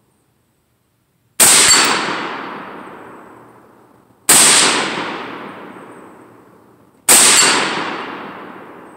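Three rifle shots from a Bushmaster QRC AR-15 in 5.56 mm, about three seconds apart, each followed by a long echo that dies away through the woods.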